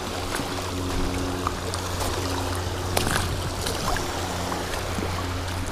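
Wading through shallow water over a rocky reef flat, the water splashing and trickling around the feet, over a steady low hum.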